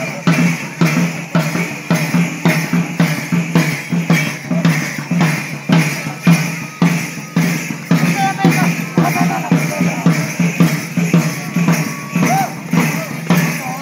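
A drum beaten with a stick in a steady, quick dance rhythm, about two to three beats a second, mixed with the jingling of the dancers' ankle bells as they dance.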